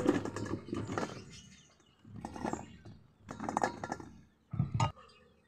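Indian jujubes tipped from a plastic colander into a steel bowl, the hard little fruits rattling and clattering against the metal and each other. The clatter comes in several separate bursts, the last with a low thud.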